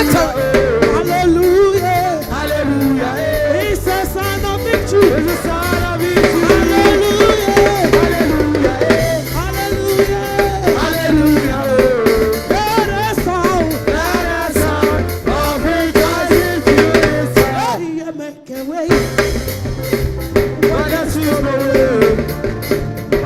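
Upbeat gospel praise music: a drum kit and a stepping bass line under singing voices. The music cuts out for under a second about three-quarters of the way through, then picks up again.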